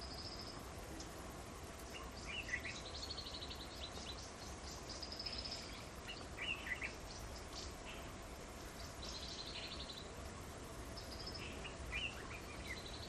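Small birds chirping in the background, with short high calls and quick ticking trills recurring every few seconds over a steady low hum.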